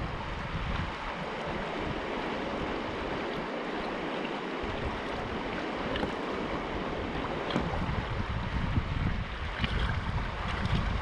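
Fast, shallow creek water rushing and churning over rocks and bank ice close to the microphone. Wind buffets the mic in gusty low rumbles at the start and again in the last few seconds.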